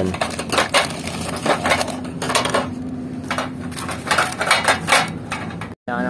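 Irregular clicks and light clatter of hard parts being handled: the plastic tube-holder cups and the metal bracket strip of a solar water heater's tube collector. The sound cuts off abruptly near the end.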